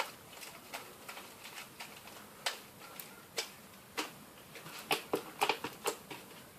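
Slime being kneaded and stretched by hand, giving scattered small clicks and pops that come more often about five seconds in. The slime has had a lot of contact lens solution added and rips when pulled.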